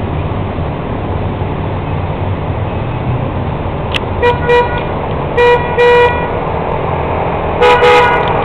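A vehicle horn honks in three pairs, about four, five and a half and eight seconds in, the middle pair held longer than the others, over a steady low rumble.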